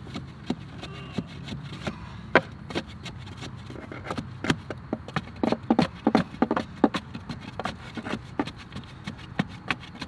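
Backfilled soil being tamped down around a wooden post with a long bar: a run of irregular thuds and knocks, thickest in the middle.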